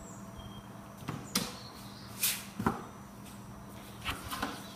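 Panels of a flat-pack drawer box being fitted together and set down on a wooden tabletop: a handful of sharp wooden knocks and clicks, the loudest about two and a half seconds in, over a faint steady hum.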